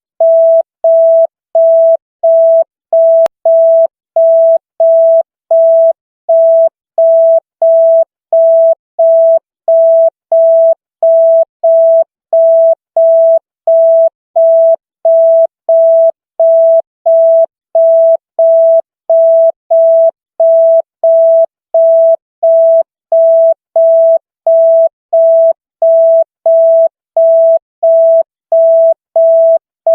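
Electronic beep at a single mid pitch, repeating evenly about one and a half times a second with short gaps between beeps: the police '100' signal tone.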